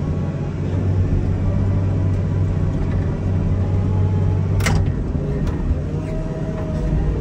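Komatsu wheel loader's diesel engine running steadily under load, a low rumble with a steady hum. A single sharp knock a bit over halfway through.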